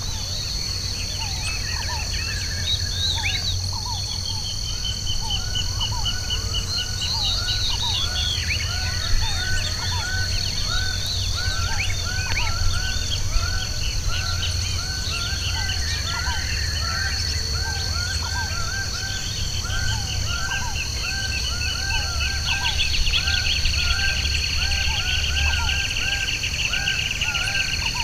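Several birds singing and calling at once, with short repeated chirps and rapid trills, over a steady high-pitched insect drone. A low rumble runs underneath.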